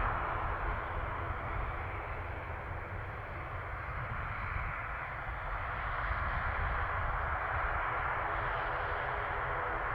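Jet aircraft engine noise as a steady rush that eases a little about three seconds in and builds again after about six seconds.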